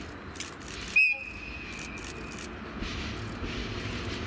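DE10 diesel locomotive's whistle sounding once, a single sharp high-pitched blast about a second in that fades out within about a second and a half, over the low rumble of the passing train. The train's running noise grows near the end.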